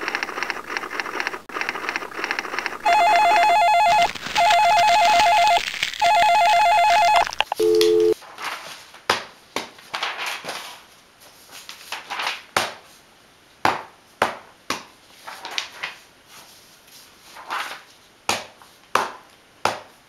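An electronic telephone ringer trilling in three loud rings, then a short two-note beep. After that a rubber stamp knocks down on paper on a desk about a dozen times at an uneven pace.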